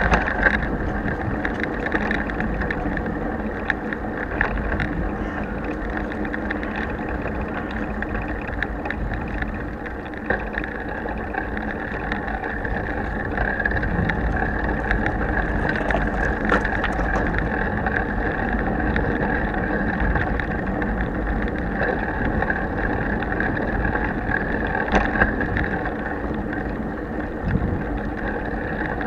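Bicycle riding noise picked up by an action camera mounted on the handlebar without its housing: a steady rumble of wind and tyre noise, with small rattles and clicks from the bike.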